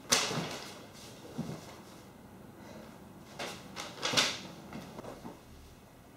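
A person sitting down on a leather sofa with a sudden thump, then a few short rustles and knocks of paper being handled, the loudest about four seconds in.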